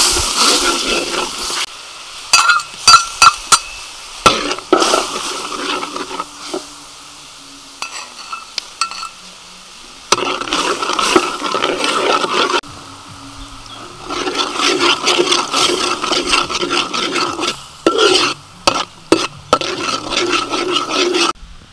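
Sauce sizzling in a wok while a metal spatula scrapes and stirs it. The sizzle is strongest at the start and dies down within about two seconds; after that the scraping comes in stretches, with a few sharp clacks of the spatula against the pan.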